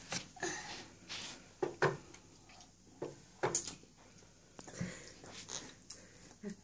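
A toddler sucking on a lemon wedge: short, scattered mouth smacks and clicks, about one every second or so.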